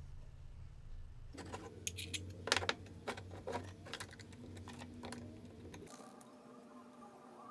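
Aluminum injection mold halves knocking and clicking together as they are handled and pressed shut, a quick run of sharp clacks with one louder knock in the middle.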